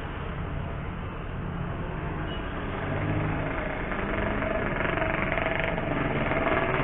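A motor vehicle engine running in street traffic, its steady hum growing louder over the last couple of seconds.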